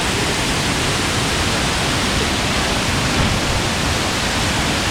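Waterfall pouring into its pool close by: a loud, steady, even rush of falling water.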